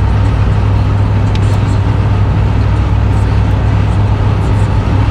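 Nissan Caravan's TD27 four-cylinder turbo-diesel pulling under heavy throttle, heard from inside the cab as a steady low drone mixed with tyre and road noise. The automatic gearbox has not yet shifted up.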